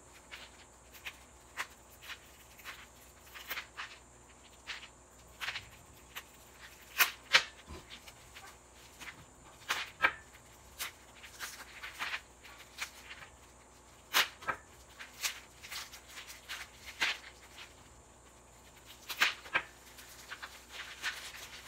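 Plastic wrapping crinkling and crackling in short, irregular bursts as a package is unwrapped by hand.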